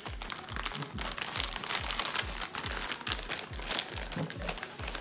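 Background music with a fast, steady bass-drum beat, and the crinkling of a crisp potato-chip bag being handled.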